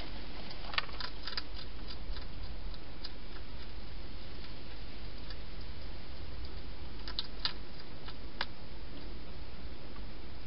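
Wild hedgehog eating at a bowl inside a plastic feeding box: scattered sharp clicks of chewing, a cluster about a second in and a few more near the end, over a steady hiss.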